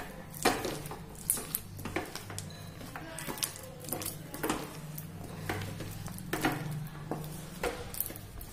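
Wooden spatula stirring a sticky mass of peanuts and jaggery syrup in a pan, scraping and knocking against the pan in irregular strokes about once or twice a second. A steady low hum runs underneath.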